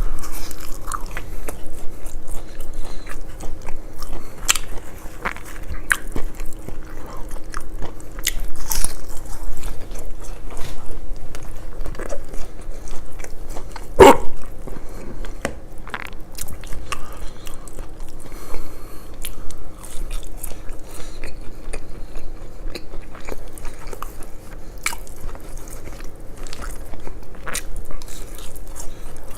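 Close-miked eating: crunchy bites and wet chewing of fried fish and chips, with many small crackles and one especially loud crunch about halfway through.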